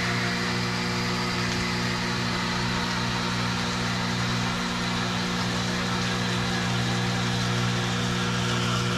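Kitchen faucet running into a stainless steel sink, a steady rushing of water that is shut off just after the end.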